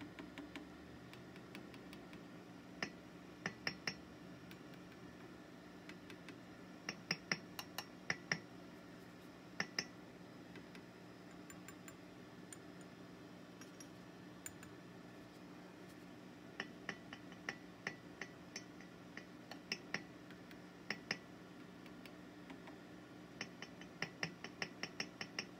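A small stylus tapping one by one on the glass vacuum tubes of a powered-up Fender Deluxe Reverb amp: short sharp glassy ticks in small groups with pauses between. This is a tap test of the tubes for noise. Under it runs the amp's faint steady hum.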